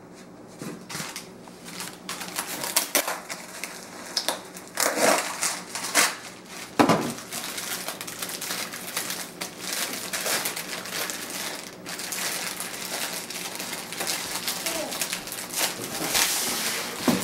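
Clear plastic bag crinkling and rustling as it is handled and pulled open, in irregular crackles with several louder crunches.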